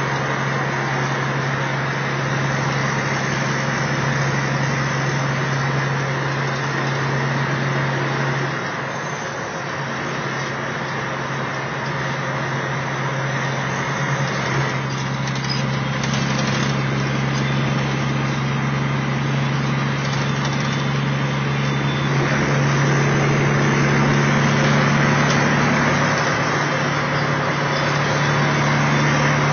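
Kenworth T600A's Caterpillar diesel engine running steadily at road speed with tyre and road noise, heard from inside the cab as a continuous low drone. The drone dips briefly about nine seconds in and is a little louder near the end.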